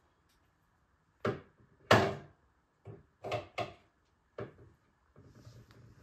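Small objects being handled and set down on a shelf: a run of knocks and clunks, the loudest about two seconds in, followed by faint rustling near the end.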